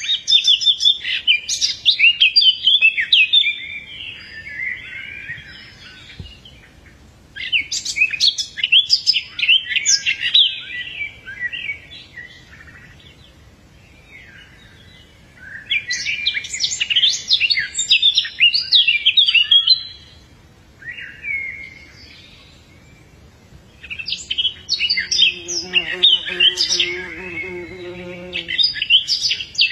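A songbird singing in four bouts of rapid, high chirping notes, each a few seconds long with quieter pauses between. During the last bout a lower, steady pitched sound runs underneath the song.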